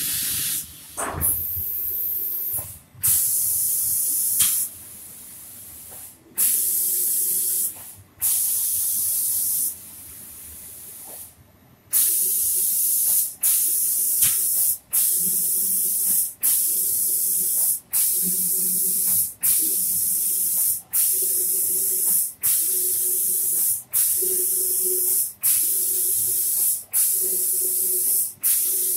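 Automatic cabinet-door spray-painting machine's spray gun hissing as it sprays the finish coat, switching on and off with each pass over the panel. The bursts are irregular and longer at first, then from about halfway through the spray cuts off briefly about once a second.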